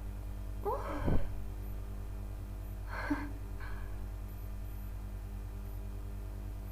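A woman's short voiced gasp about a second in, then two faint short breaths around three seconds in: breathing between sneezes with a congested head cold.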